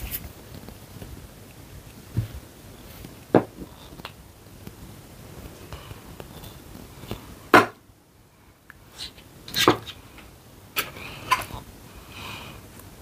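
Handling sounds of clay modelling at a tabletop: a few scattered sharp taps and knocks of tools and pieces on the table, the sharpest a little past halfway, over quiet room tone.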